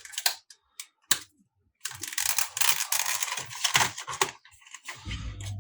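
Laptop hard-drive caddy kit being handled and unpacked. A few sharp plastic clicks come first, then about two seconds of dense rustling and clattering.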